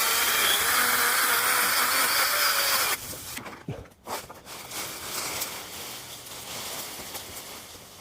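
Pole chainsaw running at high speed, a loud, steady whine with a slightly wavering pitch, that stops abruptly about three seconds in. After it stops come quieter outdoor noise and a few faint knocks.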